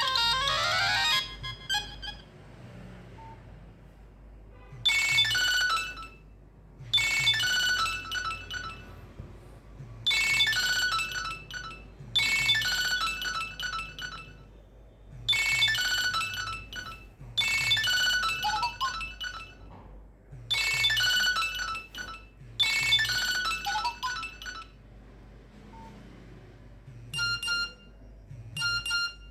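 A Nokia 3595 ringtone played through a Nokia 3120 classic's loudspeaker. The end of one tune sounds in the first second, then after a pause a new tune plays in eight short repeated phrases of bright electronic tones. Two brief tones come near the end.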